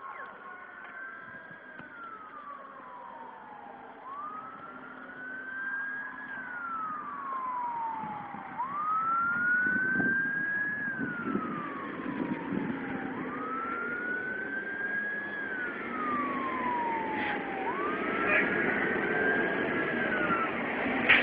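Fire engine siren on a wail, each cycle sliding slowly up in pitch and then falling, about every four and a half seconds, getting louder as it approaches.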